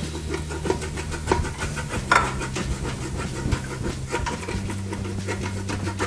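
Wooden spoon stirring and scraping through tomato sauce and onions in a stainless-steel Instant Pot inner pot, a quick run of scrapes and taps against the pot, deglazing the browned bits off the bottom.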